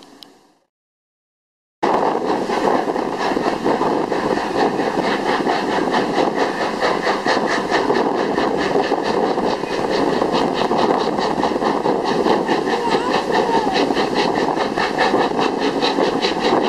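A steam-hauled passenger train running, heard from an open carriage window: a loud, rushing noise with a fast, even beat. It starts suddenly about two seconds in, after a moment of silence.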